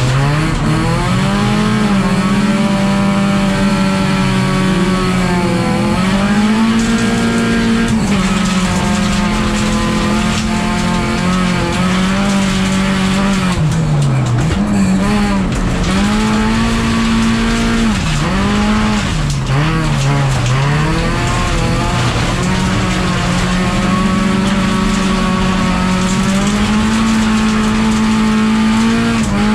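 Racing car's engine heard from inside the cabin, held at high revs with several brief drops in revs that climb straight back up, over a constant rush of tyre and road noise.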